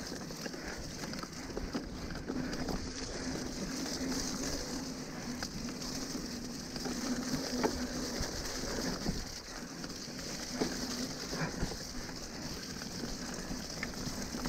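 Mountain bike riding down a wet, muddy trail: a steady rush of tyres through the mud, with scattered knocks and rattles from the bike over bumps.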